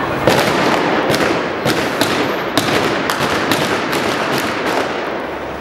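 Blank gunfire from a staged gunfight: a rapid, irregular string of sharp shots, two or three a second, over steady crowd and street noise.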